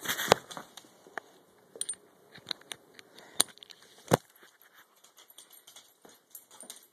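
Scattered small clicks and light metallic jingles of a dog's harness hardware and leash clip being handled while it is fitted, with one sharper click a little after four seconds in.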